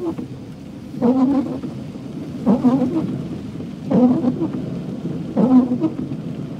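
Car windscreen wipers sweeping across a rain-soaked windscreen, four strokes about one and a half seconds apart, each a short low-pitched rubbing tone of the blade on the glass, over a steady hiss of rain and road noise.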